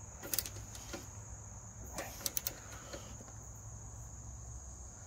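A ratchet wrench clicking in a few short strokes as a grille guard bracket bolt is tightened, mostly in a quick cluster about two seconds in. A steady high-pitched whine runs underneath throughout.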